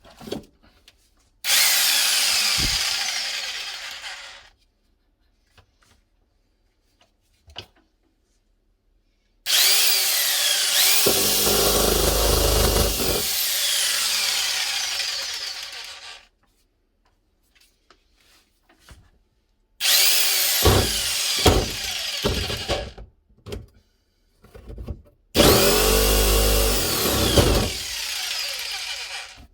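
Bosch PST 700 E compact jigsaw switched on and run four times, its motor whine falling away as it winds down after each run. In the second and last runs a low, rapid chatter joins in as the blade saws through wood.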